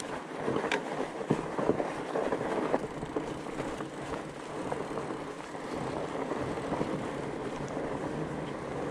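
Fat bike being ridden over a trail: a steady rumble of the wide tyres with frequent small rattles and a few sharper knocks.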